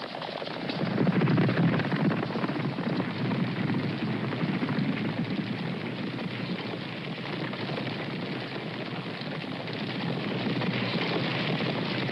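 A herd of horses galloping: a dense, continuous drumming of many hooves that swells louder about a second in, then holds steady. An old recording with a narrow sound, lacking deep bass and the highest treble.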